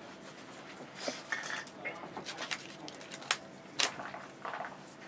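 Room noise with scattered light clicks and taps, the two sharpest a little past the middle, and faint voices in the background.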